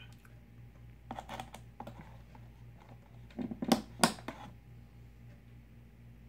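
Quick clicks and taps in two short clusters, about a second in and, louder, around four seconds in, over a faint steady low hum.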